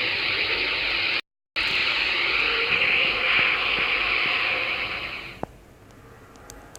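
Steady rushing hiss from a 'sound of the planets' recording presented as the sound of Earth, which the listener takes for the sound of a storm on Earth. It cuts out for a split second about a second in, then fades away after about five seconds.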